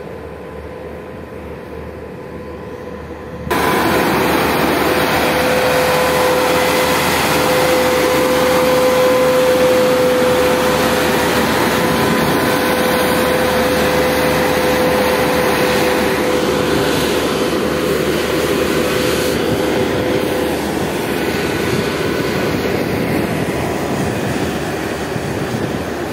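Diesel engine of a single smooth-drum roller compactor running steadily close by, a constant hum with a steady whine in it. It gets suddenly louder about three and a half seconds in and then holds steady.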